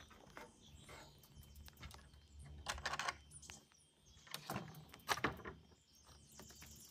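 A hand tool working dirt on a trail: crunching scrapes and chops into the soil. The loudest cluster comes about three seconds in, followed by two shorter strokes about a second apart.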